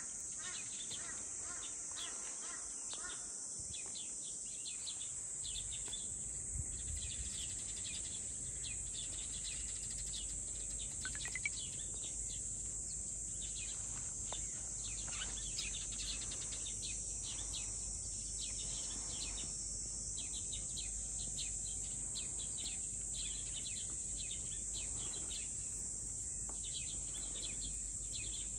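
Steady high-pitched insect drone with many short bird chirps over it. A low rumble joins about five seconds in.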